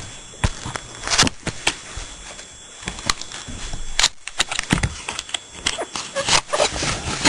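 Cardboard box being handled and opened by hand: an irregular run of scrapes, taps and rustles as the flap is pried up.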